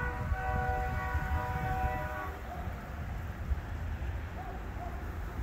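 Locomotive air horn sounding one long chord of several notes, lasting a little over two seconds, then stopping, over a steady low rumble of wind and road traffic.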